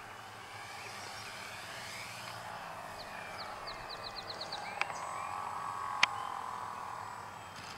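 Electric motor of a scratch-built radio-control Short Mussel model on its landing approach, its whine gliding in pitch as it passes; the motor has a loose bearing that gives it an unusual sound. Two sharp knocks come about five and six seconds in as the model touches down and rolls on grass.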